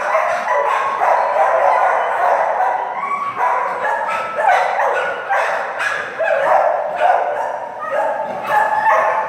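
Many kennelled shelter dogs barking and yelping at once, a continuous overlapping din of short calls with no let-up.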